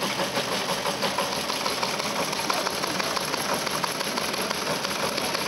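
Old Teletype machine running on a radioteletype (RTTY) feed, its printing mechanism making a steady, rapid clatter of many small clicks.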